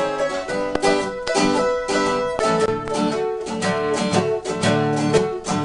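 Acoustic country-style instrumental on plucked string instruments, picking a quick run of notes with no singing.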